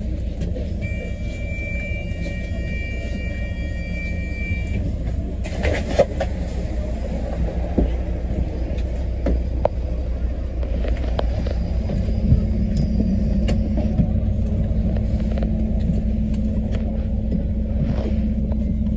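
Inside a double-decker bus on the move: steady low engine and road rumble with scattered rattles and knocks from the bodywork. A steady high-pitched tone sounds for a few seconds near the start, a thump comes about six seconds in, and the engine hum grows stronger partway through.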